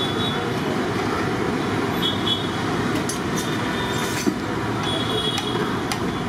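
Medu vada deep-frying in a kadai of hot oil: a steady sizzle, with a few light clinks of a metal slotted ladle against the pan as the fritters are turned and lifted out, over street traffic noise.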